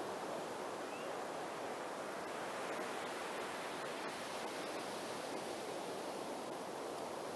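Ocean surf breaking and washing up a sandy beach, a steady rush of noise.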